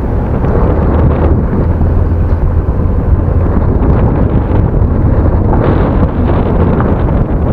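Engine of an open vehicle running steadily while driving on a rough dirt road, with heavy wind buffeting the microphone.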